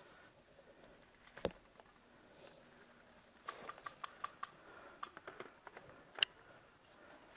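Airsoft gunfire in short sharp cracks: a single shot about a second and a half in, a quick string of shots around the middle, and one louder crack near the end.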